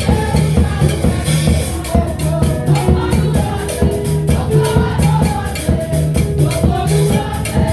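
Gospel worship song with a steady drum beat and a repeating bass line.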